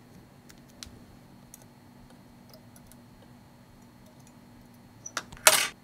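Light scattered clicks and taps as a small SD card and double-sided tape are handled on a workbench, then a short loud rasp about five seconds in as the double-sided tape is pulled.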